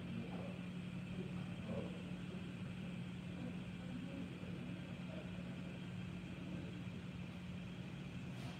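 Room tone: a steady low hum, with faint, indistinct murmurs now and then.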